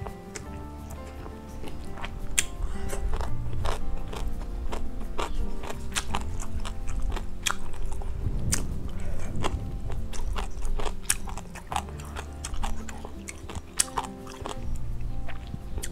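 Close-miked chewing of grilled cutlassfish, with many sharp mouth clicks, over background music.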